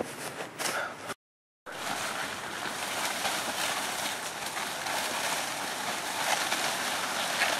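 Steady wind rushing across the microphone outdoors, an even noise with no break, beginning after a short moment of dead silence about a second and a half in.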